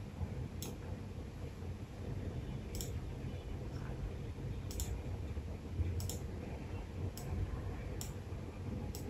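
Computer mouse clicking: about seven sharp single clicks, irregularly spaced one to two seconds apart, over a faint low steady hum.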